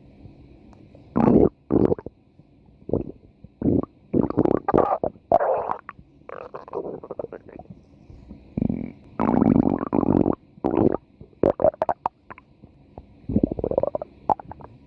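A person's stomach growling: a run of irregular gurgles and rumbles, some short and some drawn out, a few gliding upward in pitch, with the longest and loudest a little past the middle.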